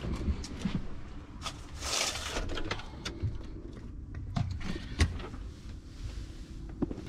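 Scattered light knocks and clicks of things being handled, with a brief hiss about two seconds in.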